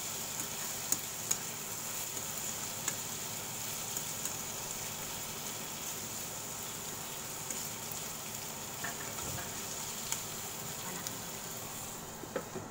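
Sliced carrot, green bell pepper, sweet corn and onion sizzling steadily in a nonstick frying pan, with scattered light clicks of chopsticks stirring against the pan. Near the end a glass lid clinks onto the pan and the sizzle turns muffled.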